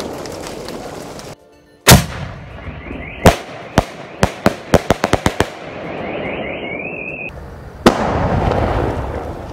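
Firework sky-shot cake firing: one very loud bang about two seconds in, then a quick string of about eight sharp bangs, and a rising, warbling whistle that cuts off suddenly. Near the end a crack is followed by the steady loud hiss of a ground fountain spraying sparks.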